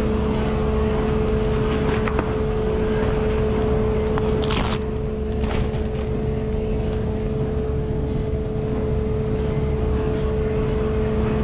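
Steady machine hum of a commercial kitchen, a constant tone over a low rumble, with light clatter and a brief scrape about four and a half seconds in.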